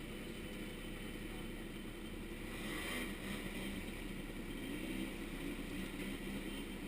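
Small 50cc ATV engine running faintly and steadily, its pitch rising briefly around the middle.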